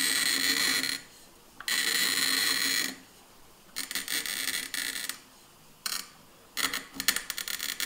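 Bottle glass cutter's scoring wheel biting into a clear glass bottle as it is turned by hand: three long, high, ringing scratches of about a second each, with short pauses between, then a shorter, crackling run of clicks near the end as the score line closes the full turn.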